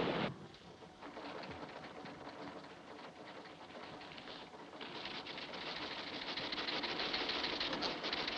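A steady rush of noise cuts off just after the start. Then newspaper pages are handled and turned, a dry paper rustle with many small crackles that grows busier and louder in the second half.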